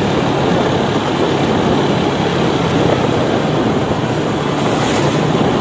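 Motorcycle running at road speed, its engine hum buried in steady wind and road rumble.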